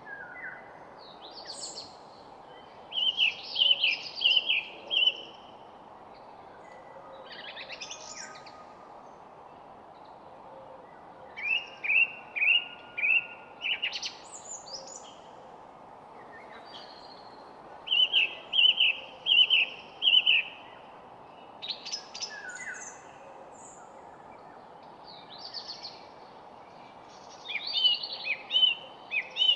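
Birds singing: one bird repeats a short phrase of four or five quick notes about every seven to eight seconds, with scattered higher chirps from others between, over a steady background hiss.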